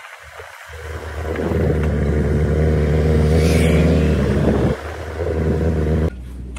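A motor vehicle engine running steadily, building up after the first second and dropping off sharply about four and a half seconds in before briefly returning; the sound changes abruptly near the end.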